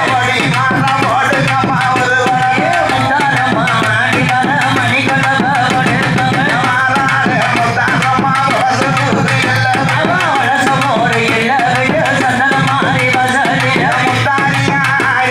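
A woman singing a Tamil folk devotional song calling the goddess Amman, amplified through a microphone and PA loudspeaker, over a fast, steady drum beat.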